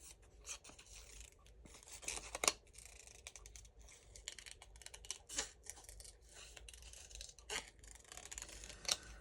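Scissors fussy-cutting paper: a run of small, irregular snips with paper rustling, a few snips louder than the rest.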